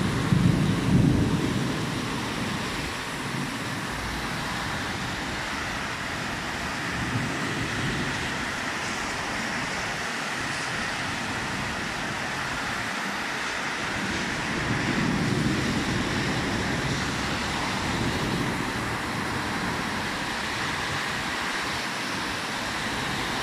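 Heavy rain pouring down on a city street: a steady hiss, with cars swishing through on the wet road. Gusts of wind rumble on the microphone, strongest in the first couple of seconds and again about midway.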